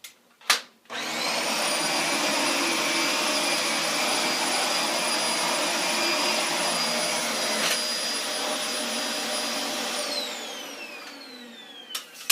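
Dyson DC24 upright vacuum cleaner switched on with a click, its motor whining up to speed and running steadily with a high whine over the rush of suction. Near the end it is switched off and the whine falls away as the motor spins down.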